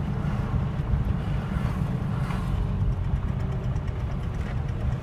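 Steady low rumble of a car driving at speed, engine and road noise heard from inside the cabin.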